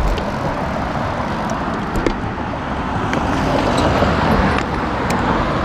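Road traffic going past on a street, with a pickup truck driving by close alongside about four seconds in, when the roar swells a little.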